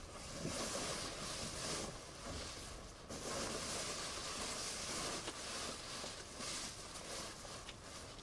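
Plastic sheeting and a coat rustling as a person moves around and settles into a cramped shelter. The rushing comes in several long swells, the longest in the middle.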